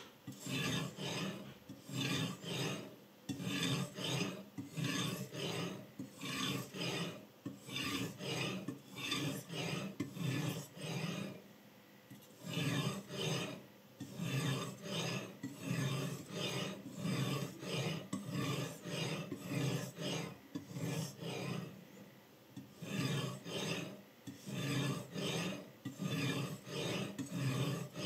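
Abrasive stone on a guided-rod knife sharpener scraping back and forth along a kitchen knife's steel edge, in a steady run of short strokes with a couple of brief pauses.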